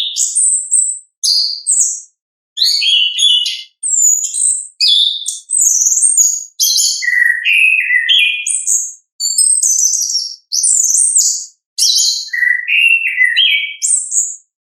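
Chestnut-capped thrush singing: a string of about a dozen high, varied phrases of whistles, slurred notes and quick chattering runs, each a second or so long, with short breaks between.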